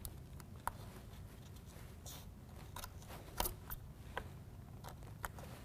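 Scattered light clicks and taps, about eight in all, from hands working a foam sealing strip into the gap along the bottom of a window air conditioner, over a steady low hum.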